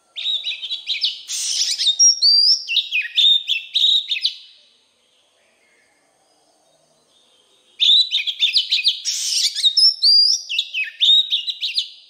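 Oriental magpie-robin singing two loud song phrases of about four seconds each. Each is a rapid run of clear whistles, slurred notes and trills, with a pause of about three seconds between them.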